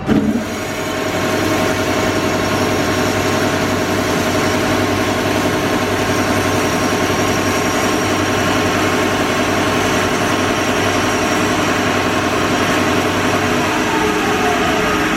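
Amada HA-250W automatic horizontal band saw starting up and running steadily, its blade drive and hydraulics giving an even machine hum with several steady tones after the vises clamp the stock.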